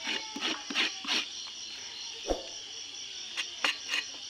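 A steady, high chorus of insects, over which a knife scrapes in short, quick strokes across an animal skin on a wooden bench: a run of strokes in the first second and three more near the end. A single dull knock comes about halfway.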